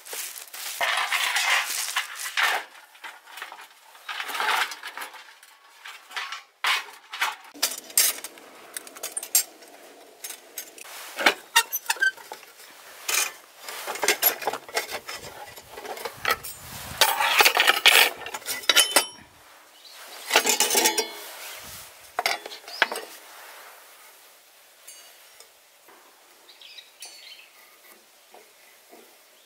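Dishes, pots and cutlery being handled: irregular clinks, clatter and rustling in bursts, growing quieter after about 23 seconds.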